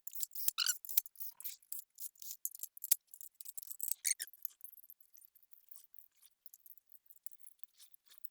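Light, irregular metallic clicks of a hand tool tightening oil pan bolts on an LS engine. Busy for the first four seconds or so, then sparser and fainter.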